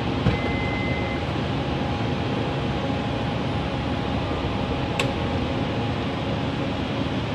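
A Toyota Vellfire's power sliding door opening: a click and a short high beep just after the start, over a steady hum and hiss, with another sharp click about five seconds in.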